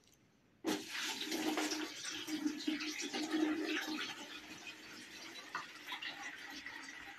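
Milk pouring off a tilted enamel tray into a plastic bucket. This drains the liquid left under the set kaymak. The splashing stream starts about a second in, is loudest for the next few seconds, then thins toward a trickle.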